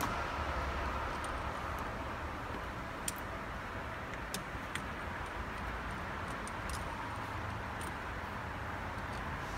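A few faint, sharp clicks of a hand driver and bolts while a steering wheel's mounting bolts are threaded in by hand, over a steady low background rumble.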